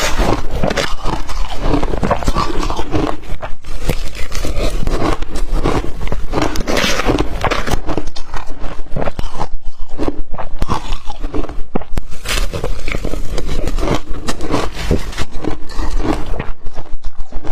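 Close-miked biting and chewing of blender-crushed ice: dense, repeated crackling crunches one after another.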